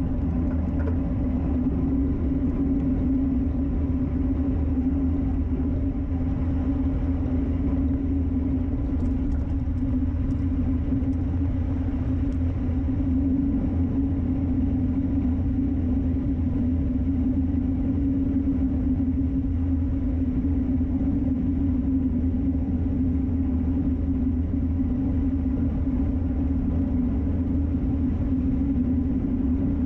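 Steady wind rush and tyre rumble from riding a road bike at speed, picked up by a bike-mounted camera; it holds level throughout with a low hum.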